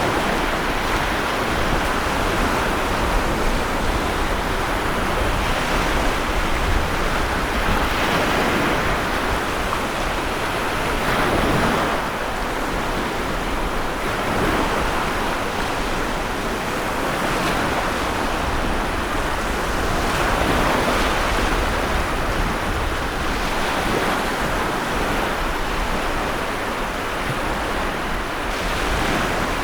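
Stormy sea: heavy surf, waves breaking in swells every few seconds over a constant rush of water and wind.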